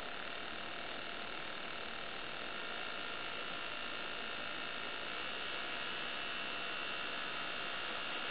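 Home-made 555-timer engine-sound emulator for a model P-51 Mustang giving a steady electronic buzz, a crude imitation of the Rolls-Royce Merlin aero engine that sounds little like one.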